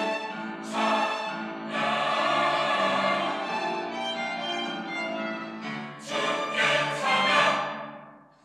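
Church choir singing an anthem in held chords; the singing swells about seven seconds in and then dies away near the end.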